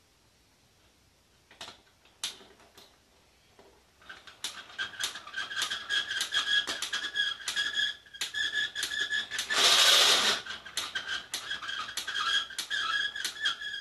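Hand-cranked winder on a toy Leonardo da Vinci helicopter launcher turning, winding up the rubber band inside the post that powers the rotor: a few clicks, then a rapid run of squeaky clicking from about four seconds in, with one louder, brief rasp about ten seconds in.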